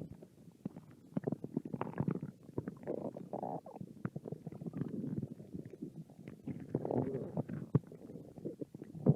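A hungry stomach growling: a steady run of wet pops, squelches and low gurgling rumbles, with longer bubbling gurgles about three and seven seconds in.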